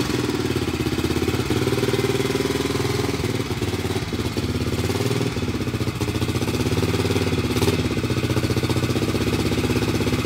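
Vintage single-cylinder motorcycle engine idling steadily, its speed rising and falling slightly now and then.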